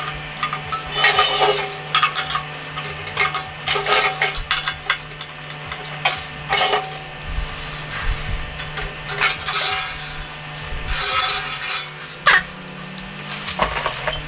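A cheap kettle barbecue's metal bowl, parts and wire cooking grate clanking and rattling irregularly as it is assembled by hand, with a longer rattle about eleven seconds in.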